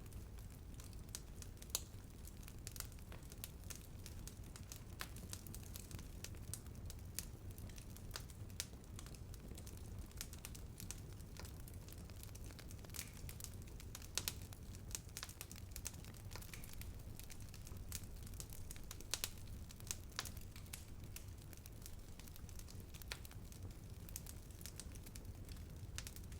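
Wood fire burning, with irregular crackles and pops over a low steady rumble.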